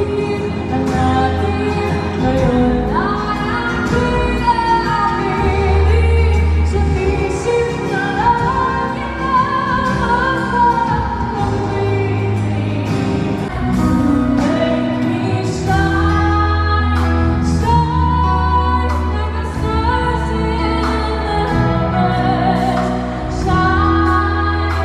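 A woman singing a song live into a handheld microphone over amplified instrumental accompaniment, with long held bass notes and repeated cymbal-like strikes.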